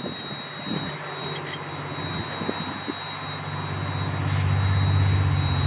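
Diesel locomotive engine running with a low, steady hum that grows steadily louder as it draws closer.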